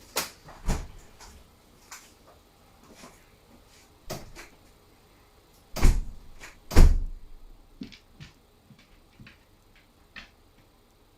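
A door being handled: a few knocks near the start, two heavy thuds about a second apart just past the middle, then a scatter of light clicks.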